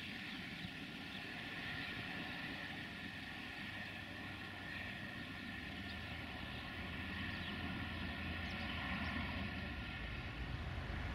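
Outdoor ambience with a steady distant engine drone, its low rumble growing a little louder in the second half.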